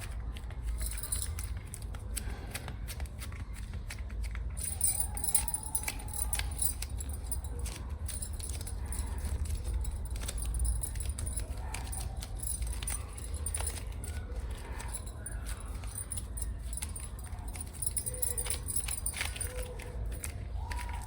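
Long fingernails tapping and clicking rapidly on hard packaging, a dense run of sharp, jingly clicks, over a steady low hum.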